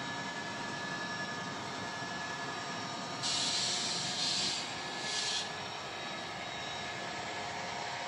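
00 gauge model diesel locomotive's DCC sound decoder playing a steady diesel engine drone as it hauls a freight train. A few bursts of hissing come between about three and five and a half seconds in.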